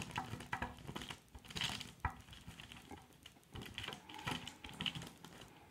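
Hands rolling modelling dough into thin coils on crumpled kraft paper: the paper rustles and crinkles under the palms in short irregular bursts, with small clicks and a sharper tap about two seconds in.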